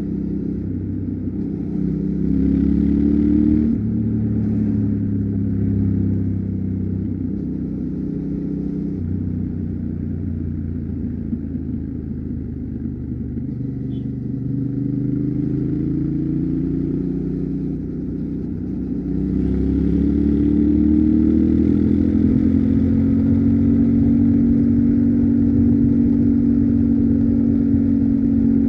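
Yamaha Ténéré 700's 689 cc parallel-twin engine under way, the engine note climbing as it accelerates a couple of seconds in and dropping sharply at an upshift about four seconds in. It climbs again from about two-thirds through, then holds a steady cruising note.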